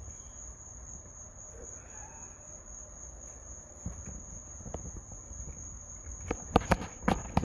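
Crickets trilling in a steady, high, unbroken tone. A quick run of sharp clicks and knocks comes near the end.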